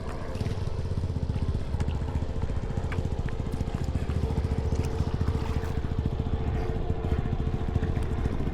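An engine running steadily close by: a fast, even low rumble with a steady hum above it, and a few faint light clatters.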